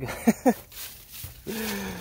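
An animal's two short yelping calls, each falling steeply in pitch, a quarter second apart.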